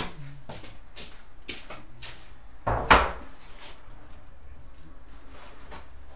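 A row of light knocks and taps, about two a second, with one much louder knock about three seconds in, over a low steady hum.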